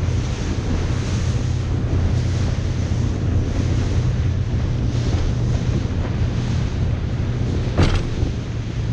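Boat engine running steadily as a low drone, with wind rushing over the microphone. A single sharp knock comes about eight seconds in.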